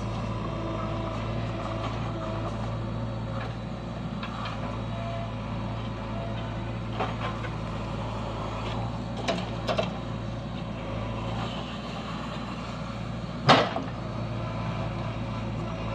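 Diesel engines of a JCB 3DX backhoe loader and a tractor running steadily with a low hum while the backhoe digs soil. A few light clanks come in the middle, and one sharp, loud knock about three-quarters of the way through.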